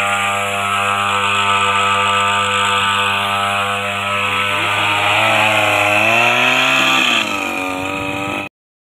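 Small two-stroke engine of a backpack power sprayer running steadily while pesticide is sprayed; its speed wavers up and down about five seconds in, then the sound cuts off abruptly near the end.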